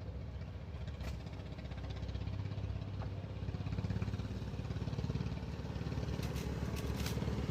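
A small engine running steadily at an even speed, with a few light clicks near the end.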